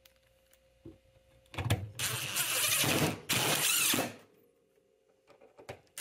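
Cordless DeWalt drill running in two short trigger pulls, about two seconds in and again a second later, driving a screw back into a refrigerator cabinet's hinge screw hole. A light knock comes just before.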